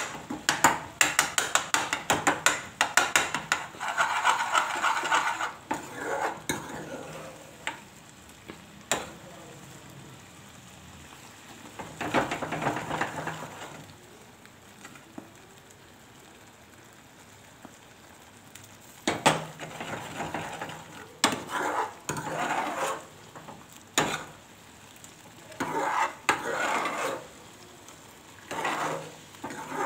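Steel ladle stirring dal in a metal pan over a gas flame: a fast run of clinks against the pan at first, then bursts of stirring and scraping with a quieter stretch in the middle, and near the end the dal is lifted with the ladle and poured back into the pan.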